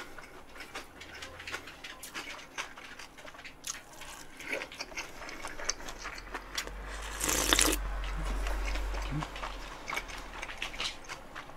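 Close-miked eating sounds of cold mul-naengmyeon noodles: a run of small wet chewing clicks, and a louder slurp of noodles about seven seconds in.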